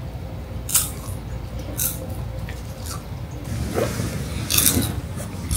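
Crunchy food being bitten and chewed: single sharp crunches about a second and two seconds in, then a quicker run of crunches over the last two seconds.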